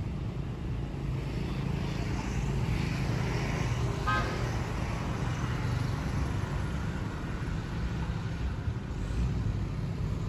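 Steady low motor rumble with a faint outdoor hiss. About four seconds in comes a brief high-pitched pulsing toot.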